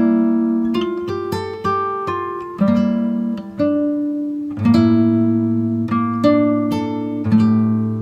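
Background music on plucked acoustic guitar: picked notes and chords that ring out and fade, a new one struck roughly every second, with a deeper bass note joining about halfway through.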